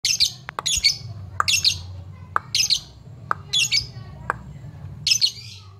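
Lovebird giving short, shrill, harsh calls, repeated in quick bursts, some in pairs, about once a second, with a few sharp clicks between them. This is a calling display meant to provoke a rival lovebird into answering.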